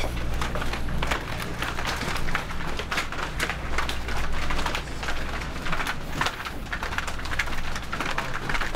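Footsteps and clothing rustle of a small group walking close together on pavement, with handling noise on a handheld camera: a dense run of irregular clicks and scuffs over a low rumble.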